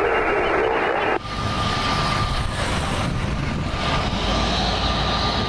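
Radio hiss cuts off about a second in, leaving airliner or business-jet engines at the airport: a low rumble with a steady high whine.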